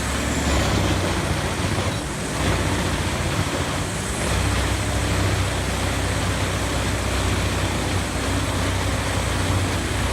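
Large wood chipper running: a steady engine drone under a dense, continuous noise of wood being shredded.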